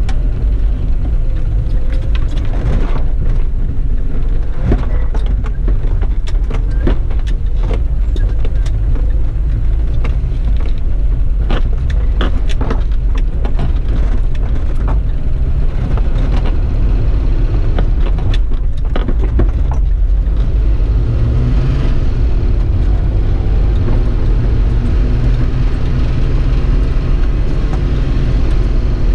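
A 4x4's engine and drivetrain droning steadily at a slow trail pace, heard from inside the cab, with frequent knocks and rattles as it rolls over ruts and rocks on a dirt track.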